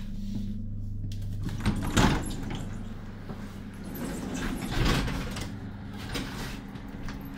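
Interior doors of an electric suburban train carriage being handled: a loud knock about two seconds in and another about five seconds in, over the carriage's steady low hum.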